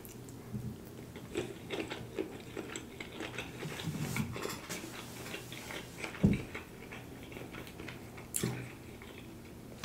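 A person chewing a mouthful of rice close to the microphone: soft, irregular mouth clicks and smacks, with one low thump about six seconds in.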